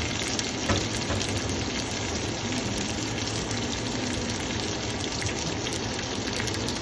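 A5 wagyu ribeye sizzling as it sears: a steady hiss, with one sharp tick just under a second in.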